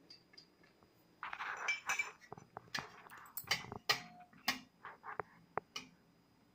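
Small metal idol and spoon clinking and tapping against a plate as curd is rubbed over the idol by hand. A soft rubbing comes first, then a run of light clinks, a few of them ringing briefly.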